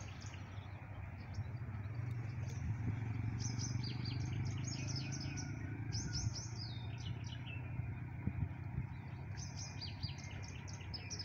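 Small birds chirping and trilling in quick runs of high notes, with a brief lull about two-thirds of the way through, over a steady low hum.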